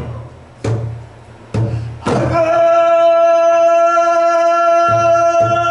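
Pansori singer holding one long, steady sung note that begins about two seconds in, accompanied by sparse strokes of the buk barrel drum: two strokes before the note and two more near the end.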